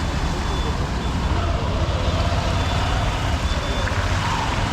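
Honda SP125 motorcycle's single-cylinder four-stroke engine running steadily under way, mixed with the road and traffic noise around it.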